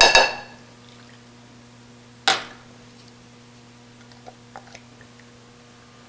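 A glass measuring cup clinks against a ceramic mixing bowl with a short ring at the start, and a single sharp knock follows about two seconds in. A few faint taps come later as the thick corn-syrup-and-bourbon mixture is scraped out of the cup with a spatula.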